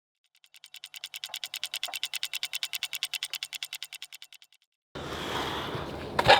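Fast, even clock-like ticking, about eight ticks a second, fading in and then out, used as a time-passing sound effect. About five seconds in, outdoor background noise cuts back in, with one sharp thump near the end.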